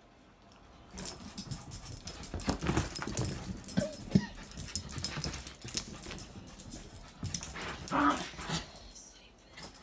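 Dog sounds among rustling and scuffling noise, starting about a second in, with the strongest dog sound near the end.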